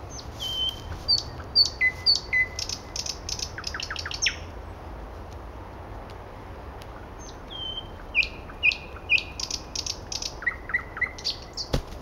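Nightingale singing two phrases with a pause between them: clear whistled notes followed by fast rattling trills. A single sharp knock near the end.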